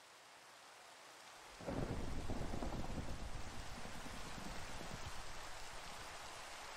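Steady rain falling, then a roll of thunder that breaks in suddenly about a second and a half in and slowly dies away over several seconds while the rain goes on.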